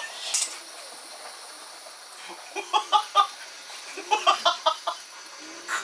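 Camping gas burner flaring on liquid-feed gas at full power, a steady hiss of flame. Over it a man laughs in short 'ha-ha' bursts, three a little before halfway and a quicker run of about six near four seconds in.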